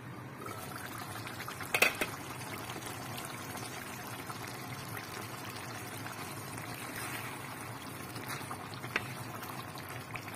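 Food cooking in a pan with a steady bubbling hiss, and two sharp knocks about two seconds in.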